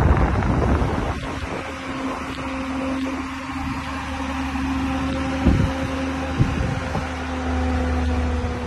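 Range Rover's engine running at steady revs, a low even drone, with wind buffeting the microphone at the start and a couple of low thumps midway.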